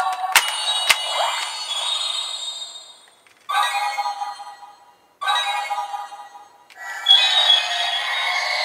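DX Ark Galaxer toy weapon playing its electronic sound effects, music and voice lines through its small speaker, in several bursts that start about three and a half, five and seven seconds in; the last is the Solis Cube ultimate finisher sequence. Two sharp plastic clicks come about half a second and a second in as a cube is worked into its slot.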